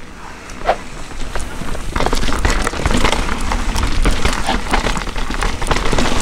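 Mountain bike descending a rough, wet dirt trail: a dense crackle and rattle of tyres and drivetrain over a low rumble. It gets louder about two seconds in.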